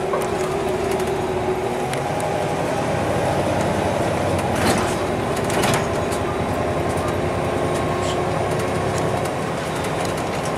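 Inside a moving city bus: the engine hums steadily while the bus's body and fittings rattle and clatter over a bumpy road, with a couple of louder knocks about halfway through.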